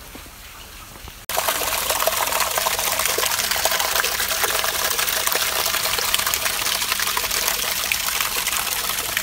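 Small waterfall: a thin stream of water splashing down over rocks, heard close up as a steady, loud rush. It starts abruptly about a second in.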